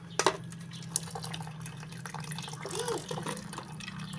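Freshly boiled tea poured from an aluminium pot through a plastic strainer into a bucket of ice cream batter, splashing and trickling steadily, with a sharp knock near the start.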